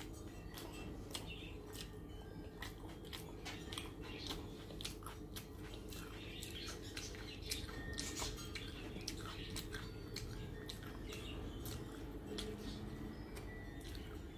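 Close-up eating sounds of a person eating rice with her hand: chewing, lip smacks and the wet squish of fingers mixing rice, heard as frequent small clicks over a steady low hum.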